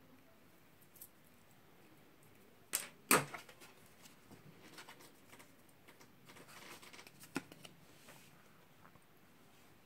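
Light handling clicks and knocks: two sharp clicks about three seconds in, then scattered small clicks and a faint scraping as a card is worked over thick thermal paste on a CPU.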